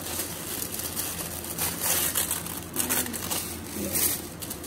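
Thin tissue paper rustling and crinkling as it is lifted and folded back from the top of a gift box, in several uneven rustles, loudest about two seconds in.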